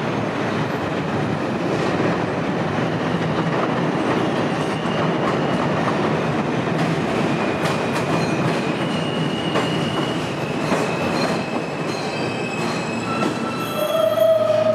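R160 subway train running through an elevated station: a steady loud rumble of wheels on rail with clicks over rail joints and a thin high wheel squeal through the middle. A short, stronger tone sounds near the end.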